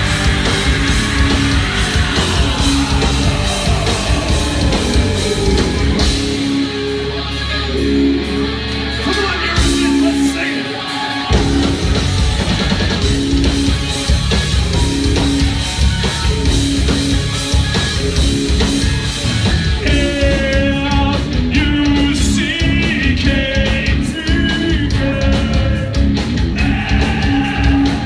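Heavy metal band playing live and loud: distorted electric guitar, bass and drums. About six seconds in the drums thin out over a held low bass note, and the full band comes back in about five seconds later.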